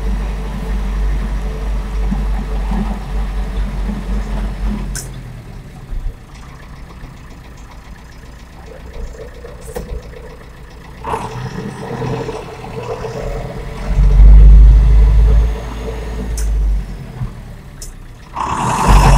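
David Brown 1490 tractor's four-cylinder diesel engine heard from inside the cab while driving on the road. It runs loud for the first few seconds, drops back about five seconds in as the tractor slows, then builds again and is loudest around fourteen seconds in as it pulls away.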